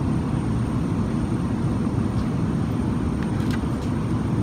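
Steady low rumble of airliner cabin noise in flight, the engines and airflow heard from a passenger seat, with a few faint clicks of a clear plastic food container being handled about three and a half seconds in.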